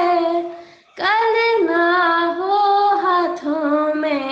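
A young female voice singing a Hindi song unaccompanied. She holds a long note, pauses briefly about a second in, then sings on with wavering, bending pitch.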